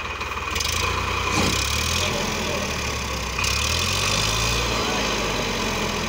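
Eicher 557 tractor's diesel engine running, its speed stepping up and down several times under changing load as it tries to pull the straw reaper that has got stuck in the ditch.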